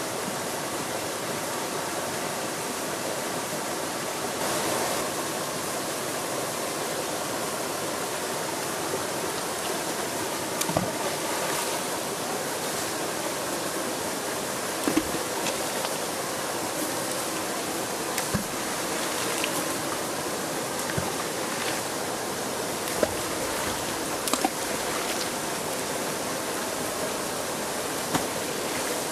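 Small waterfall spilling over rocks into a pool, a steady rushing of water, with a few short plops and splashes on the pool's surface, one of them near the end.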